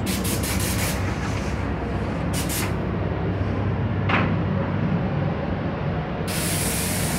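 Steady drone of a paint booth's ventilation, with cloth rubbing and rustling against the microphone in the first few seconds. About six seconds in, a paint spray gun opens up with a loud, steady hiss of compressed air.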